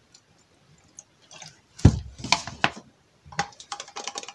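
A little water poured from a plastic water bottle into a plastic tub, then a heavy thump about two seconds in as the bottle is set down on the table, followed by a run of light plastic clicks and taps.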